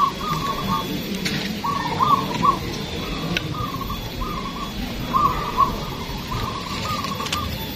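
A chorus of caged zebra doves (perkutut) cooing, their short repeated coo phrases following one another almost without a break.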